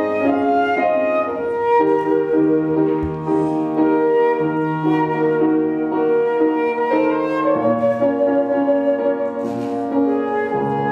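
Instrumental music: flute-like woodwind melody over sustained chords and a bass line, notes changing about once a second.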